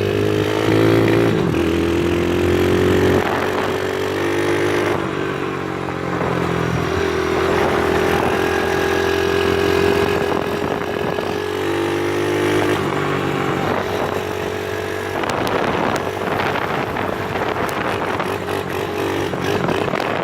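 A pit bike's small single-cylinder engine, fitted with a high-compression piston, is pulled hard through the gears. The engine note climbs and then drops at each shift, several times over.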